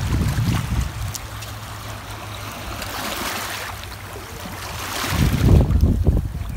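Small waves washing over the stones of a rocky shoreline, strongest about halfway through, with a steady low hum underneath. Wind buffets the microphone just after the start and more loudly about five seconds in.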